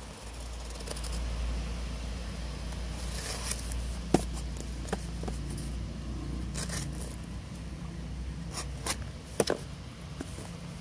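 Folding knife blade slicing and scraping through a paper shipping mailer and its tape, with rustling and several sharp clicks and crackles as the wrapping is cut and pulled. A steady low rumble runs underneath.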